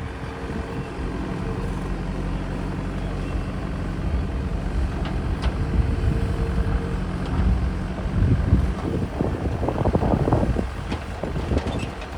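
A diesel engine of heavy machinery running steadily at low revs. From about eight seconds in, a louder, uneven low rumble comes in.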